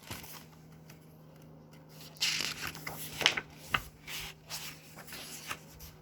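Paper pages of a book being handled and turned: rustling, with a few sharp clicks, loudest in the middle.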